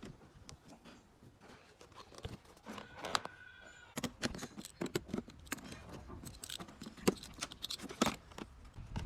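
BMW 318i four-cylinder petrol engine running roughly, with irregular, unevenly spaced knocks and clicks instead of a smooth even beat: the sign of a misfire. A brief whine sounds about three seconds in.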